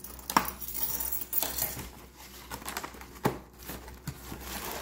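Plastic wrapping crinkling with a few light knocks as plastic-wrapped metal oven racks are handled. The sharpest knocks come just after the start and about three seconds in.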